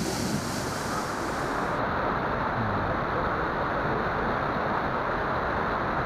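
A waterfall's steady rush of falling water.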